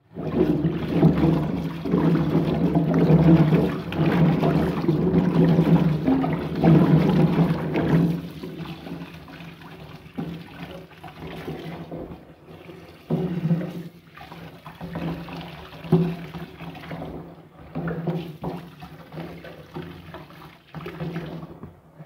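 A water tap running onto water chestnuts in a sink as a hand stirs them, loud for about the first eight seconds. After that it is quieter, with short irregular splashes and knocks as the wet chestnuts are handled.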